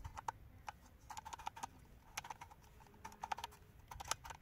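Faint, irregular light clicks and taps in small clusters, the sound of small hard objects being handled.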